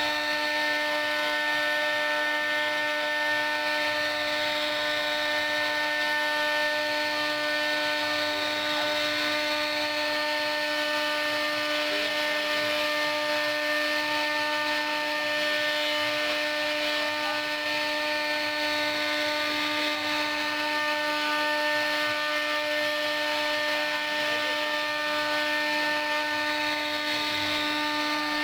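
CNC router spindle running at a steady high-pitched whine while its bit cuts into wood, an even hiss of cutting under the constant tone.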